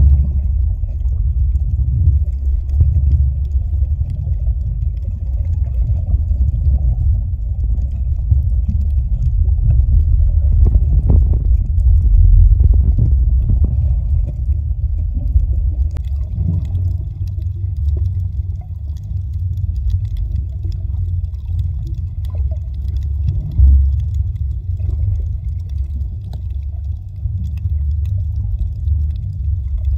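Underwater recording: a loud, steady, muffled low rumble of water moving around the submerged camera as the snorkeler swims, with faint scattered clicks.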